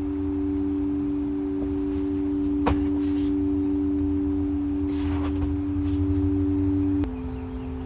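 Ambient background music: a held drone of two steady tones over a low hum, moving to a new pair of notes about seven seconds in. A single faint click about three seconds in.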